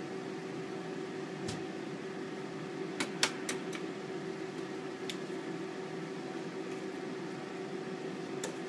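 An egg tapped and cracked on the rim of a glass bowl: a quick cluster of sharp clicks about three seconds in, the loudest being the crack, with a few single taps elsewhere. Under it runs a steady mechanical hum.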